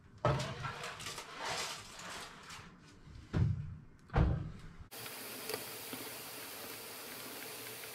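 A wire rack of chicken on foil is slid into an electric stove's oven: metal rattling and scraping on the oven rails, with a few heavy thumps as the oven is shut. About five seconds in, this gives way to a steady hiss with a low buzzing hum.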